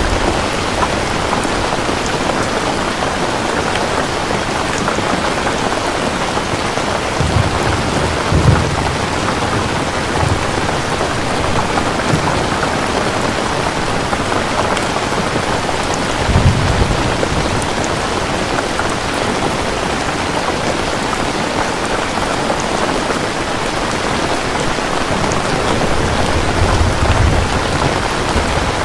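Steady heavy rain falling, with low thunder rumbling in three swells, around a quarter of the way in, just past the middle, and near the end.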